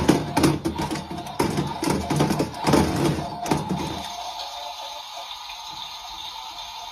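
Rhythmic music for about four seconds, then a steady hiss of running water.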